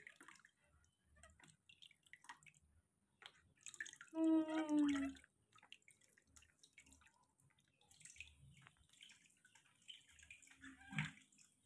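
Water dripping and trickling from a cupped hand onto a wet baby monkey in a bath, faint scattered drips and small splashes. About four seconds in, a short voice-like sound falling slightly in pitch is the loudest thing.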